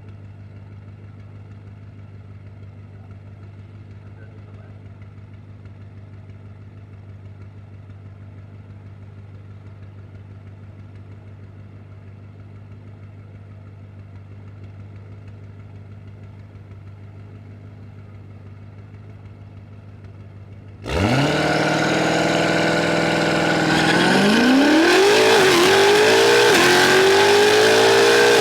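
Tuned BMW F90 M5's twin-turbo V8 running at a steady low hum, then revving up suddenly about 21 seconds in. It holds briefly, then pulls hard with rising pitch through a quick gear change: full-throttle acceleration.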